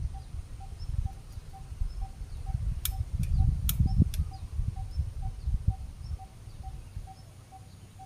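Outdoor nature ambience: a low rumbling noise, a faint pip repeating about two and a half times a second, and scattered short high chirps. A few sharp clicks come about halfway through, and the rumble dies down near the end.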